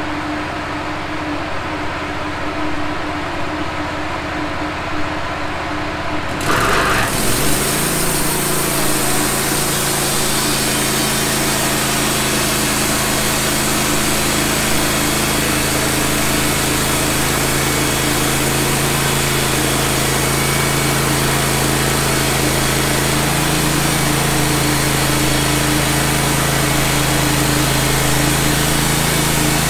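Wood-Mizer LT15 bandsaw sawmill running, its band blade biting into a pine log about six seconds in with a sudden jump to a steady, harsh sawing noise over the motor's hum as the sawhead cuts a board along the log.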